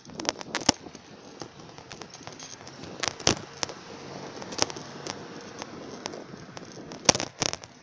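Bicycle riding over bumps, with irregular sharp clicks and knocks from the bike and the phone held loosely at its handlebar, some much louder than the rest, over a steady rushing noise.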